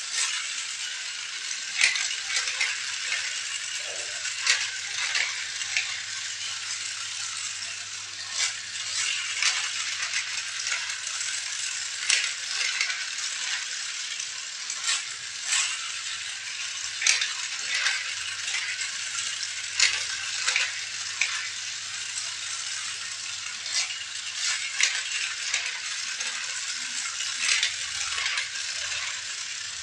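Small toy vehicles and parts rattling and clicking against each other as they are handled, over a steady hiss, with sharp knocks every second or so.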